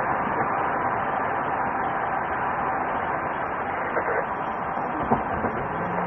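Steady rushing road and engine noise of a patrol car driving at speed in a pursuit, with a couple of faint knocks late on.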